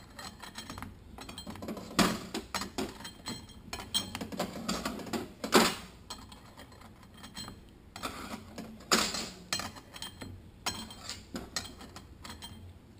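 Clutch discs and steel plates clinking as they are stacked one by one into the forward clutch drum of a Toyota A340 automatic transmission. A string of light metal clinks, the sharpest about 2, 5.5 and 9 seconds in.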